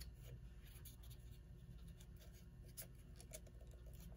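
Faint light rustling and a few small clicks as a piece of cardboard is slid under a clock's hands, over a low steady room hum.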